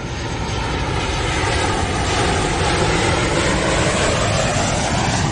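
Airplane engine rush passing by, a dense noise that swells to a peak through the middle and begins to fade near the end.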